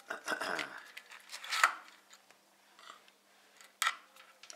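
Small metal parts clicking and scraping as a screw is handled and set in place by hand, with the sharpest click about a second and a half in and another near the end.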